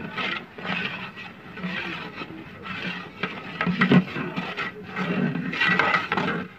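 A long-handled metal ladle stirring and scraping thick halwa of semolina, milk and eggs in a large aluminium pot, in scraping strokes about once a second. A steady low hum runs underneath.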